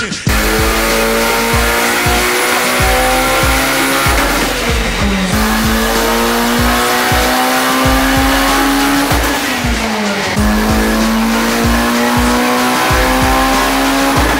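Turbocharged Integra's four-cylinder engine pulling hard on a chassis dyno. Its pitch climbs steadily and drops twice, about five and ten seconds in, as it is shifted up through the gears. Music plays underneath.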